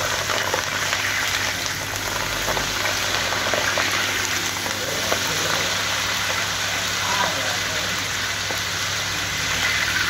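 Whole green chilies deep-frying in a kadhai of hot oil: a steady, dense sizzle and crackle of hard-bubbling oil.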